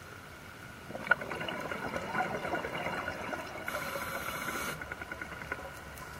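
Underwater sound through a diver's camera housing: faint crackling and bubbling from a scuba dive, with a short hiss about four seconds in, typical of a diver's regulator on the in-breath.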